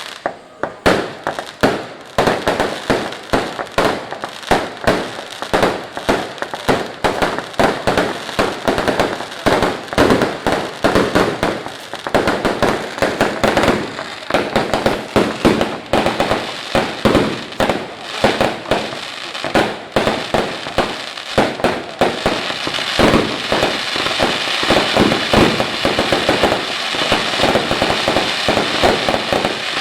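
Fireworks going off in a rapid barrage of bangs and crackles, several per second. About two-thirds of the way through they grow denser and merge into a near-continuous crackle.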